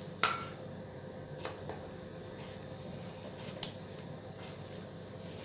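Pieces of yeasted dough going into a pan of hot oil: a faint steady sizzle with a few sharp clicks of utensils against the pan, the loudest about three and a half seconds in.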